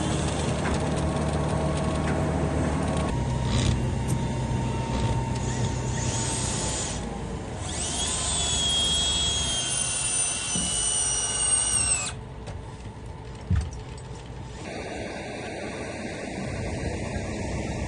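Power tools on a log-building site: a high-pitched drill whine for a few seconds in the middle, cutting off abruptly, over a steady low engine hum in the first half.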